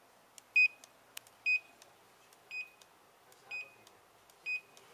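Champtek V-1010BT handheld Bluetooth barcode scanner giving short, high good-read beeps about once a second, five in all, each marking a barcode successfully scanned. The beeps grow fainter toward the end.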